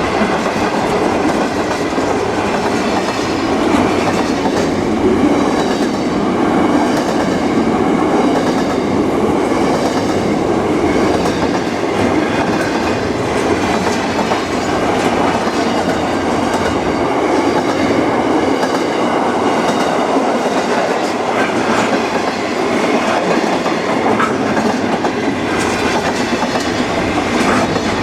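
A train's cars rolling past, their wheels running steadily on the rails in a continuous loud noise.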